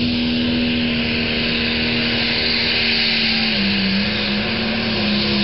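Pulling tractor's engine running at full throttle as it pulls down the track, a steady drone with a loud hiss over it. Its pitch sags briefly a little past the middle, then comes back up.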